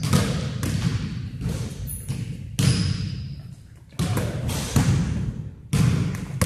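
A basketball bouncing and players' footfalls on a gym floor, irregular thuds about once a second that echo through the large hall, with a brief shoe squeak.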